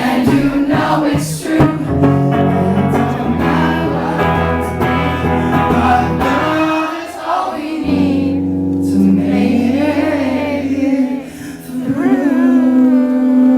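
Live singing with guitar accompaniment: the closing bars of a pop ballad, the singer drawing out long held notes without clear words, the last one near the end held with a wavering pitch.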